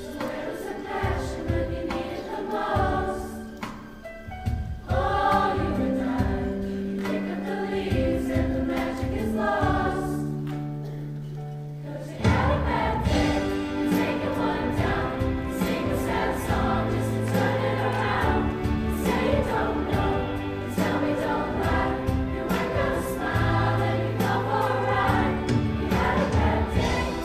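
School choir singing a pop arrangement with accompaniment: a softer, sparser passage, then about twelve seconds in the music opens out, louder and fuller, with a steady beat.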